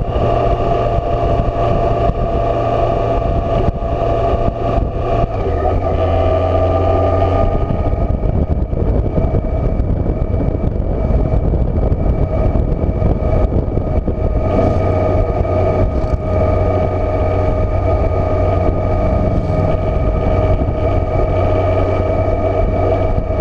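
Touring motorcycle's engine running steadily at a constant cruising speed, with wind noise. The engine tone rises slightly about six seconds in, then holds steady.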